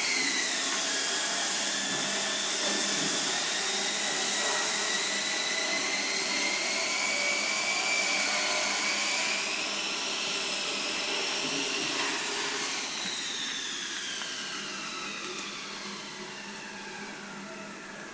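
Power tool from nearby construction work, its motor running with a high whine and hiss that picked up just before. About halfway through the hiss eases, and over the last few seconds the whine falls in pitch and fades as the motor winds down.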